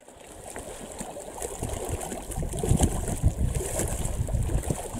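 Wind buffeting the microphone in uneven gusts, over small waves lapping at a rocky lakeshore.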